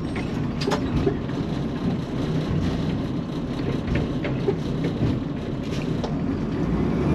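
Automated side-loader garbage truck's engine and hydraulic arm running steadily as the arm grabs a wheeled trash cart, lifts it to tip it into the hopper and lowers it again, with several knocks and clunks from the cart and the arm.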